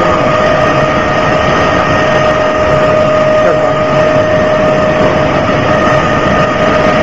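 Flat-die feed pellet mill running: a loud, steady mechanical drone with a constant whine held at one pitch.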